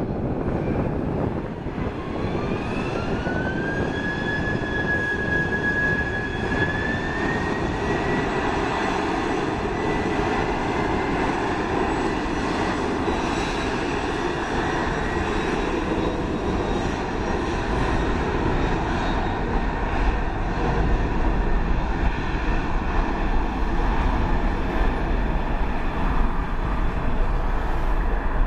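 Boeing 767-300 freighter's turbofan engines running as it taxis onto the runway for takeoff: a steady jet roar with a whine that rises in pitch over the first few seconds, levels off, then climbs a step higher. A deeper rumble builds in the last third as the engines are brought up.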